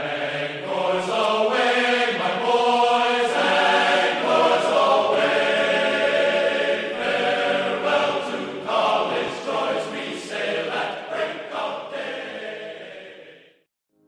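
Background music with layered, sustained voices, fading out about half a second before the end.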